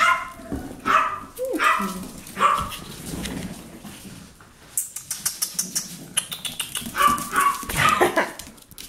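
Yorkshire terrier puppies barking in play: short, high-pitched yips about once a second, a burst of fast ticking in the middle, then more quick barks near the end.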